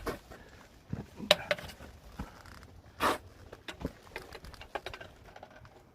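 Irregular scuffs, taps and knocks of a hiker climbing over rock, about a dozen sharp ones spread unevenly.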